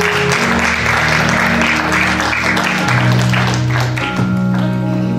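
Applause over music with held low chords. The clapping thins out near the end while the music carries on.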